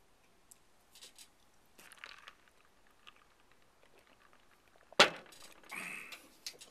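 A man's mouth and breath noises while his mouth burns from a very hot chili pepper: small sniffs and breaths, then about five seconds in a sudden sharp burst of breath, followed by a short hissing breath.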